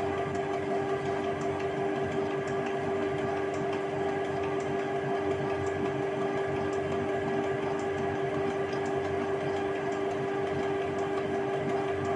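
Canon G3060 ink tank printer running a nozzle check print, its mechanism, with a freshly fitted carriage belt, giving a steady motor hum with faint ticks.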